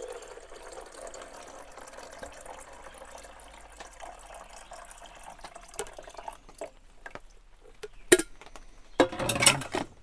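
Water pouring from a glass carafe into the reservoir of a Coleman camping drip coffee maker, a steady trickle that stops about six seconds in. A few light clicks and one sharp clack follow as the plastic lid is shut, then a clatter near the end as the glass carafe is set in place.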